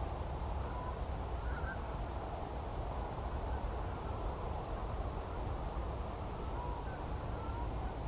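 Canada geese in flight, a few scattered honks heard faintly over a steady low rumble.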